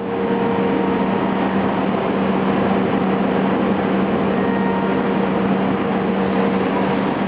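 HOMAG five-axis CNC router milling a curved laminated-wood part: the spindle and cutter run with a loud, steady mechanical noise and a strong steady low hum.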